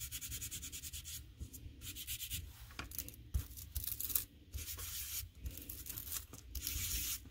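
Ink blending tool rubbed over embossed cardstock in quick, light strokes, applying red ink to the raised surface: a dry, scratchy rubbing of several strokes a second.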